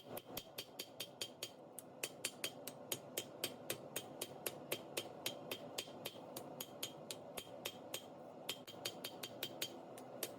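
A hammer striking steel on an anvil in quick, even blows, about five a second, over a steady hum.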